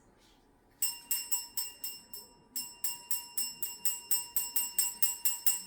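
A cockatoo shaking a small bell toy, rapid ringing strikes at about five a second. The ringing starts about a second in, pauses briefly, then goes on.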